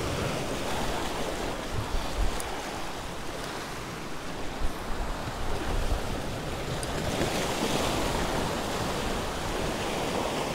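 Surf washing and breaking against the rock blocks of a jetty, a steady rushing wash that swells a little about seven seconds in, with wind buffeting the microphone.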